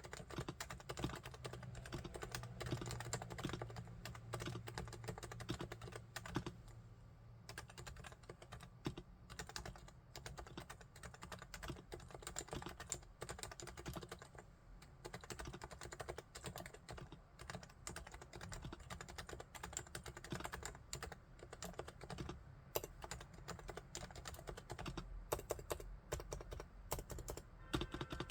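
Steady typing on a Realforce R3 tenkeyless Bluetooth keyboard fitted with silent 45 g Topre electrostatic capacitive switches. The keystrokes come in a fast, continuous stream, briefly thinning out about seven seconds in.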